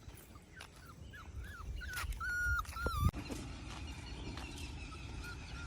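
A puppy whining: a run of short, high whimpers, then a longer drawn-out whine about two seconds in that drops away at its end, followed by fainter whimpers.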